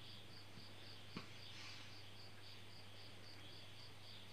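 Faint, steady insect chirping, about four pulses a second, over a low steady hum, with one faint click about a second in.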